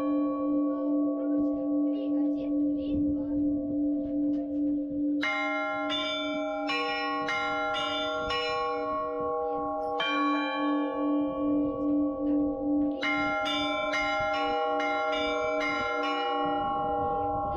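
Russian Orthodox church bells ringing: a low bell's hum swells and fades throughout under smaller bells of several pitches, struck in quick runs. Fresh runs come about a third of the way in, again about halfway, and near the end.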